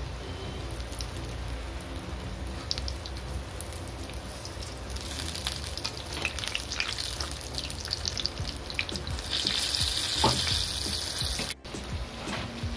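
Batter-coated, potato-stuffed green chilli bhajiyas deep-frying in hot oil: a steady bubbling sizzle with crackle. The crackle grows denser and louder over the last few seconds, then breaks off for an instant near the end.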